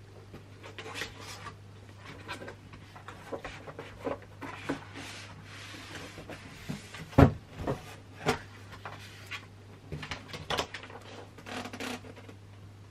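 Cardboard packaging of an iMac box being handled: cardboard inserts scraping and rubbing as they are pulled out, with irregular knocks, the loudest a single thump about seven seconds in.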